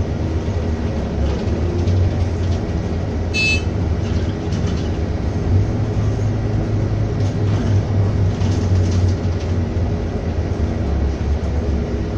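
Daewoo BS120CN low-floor city bus driving, heard from inside the cabin: a steady engine and road rumble. A short high-pitched tone sounds once about three and a half seconds in.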